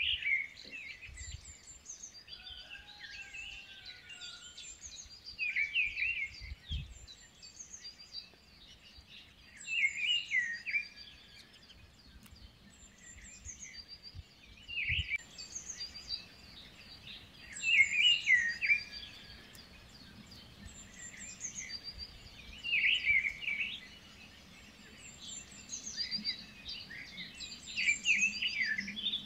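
Birds singing: bursts of chirping song every few seconds, with fainter high chirps in between. A few soft low knocks.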